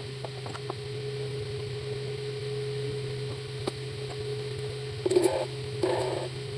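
Steady low electrical hum with scattered light clicks and two short scraping rustles near the end.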